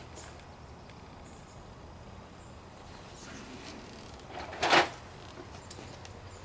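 Quiet background with a single short clatter about three-quarters of the way through, followed by a few faint clicks, as of an object being handled or set down.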